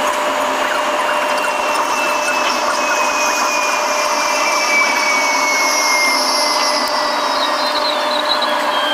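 Running noise heard inside the cabin of a 500 series Shinkansen: a steady loud hiss and hum, with high whines that slowly fall in pitch.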